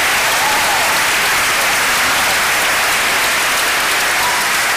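Large audience applauding steadily, a dense wash of many hands clapping.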